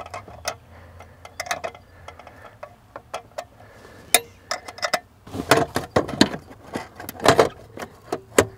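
Irregular light clicks, small metallic rattles and knocks as a C5 Corvette's metal-cased body control module and its fastener are handled and pushed back into the mount. Louder knocks come in a cluster about five to six seconds in and again past seven seconds.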